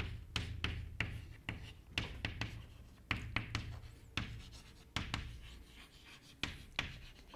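Chalk writing on a blackboard: a string of short, irregular taps and scratches as words are chalked up, with brief pauses between strokes.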